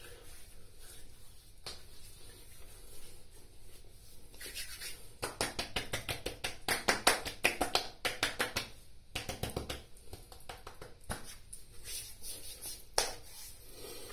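Bare hands patting and slapping aftershave onto freshly shaved cheeks and neck: a rapid run of light slaps on skin, thickest from about four to ten seconds in, with a few scattered pats and rubs around it.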